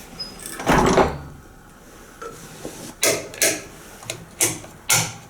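A scrape and clunk about a second in, then five sharp knocks or clacks, unevenly spaced, over the next two seconds.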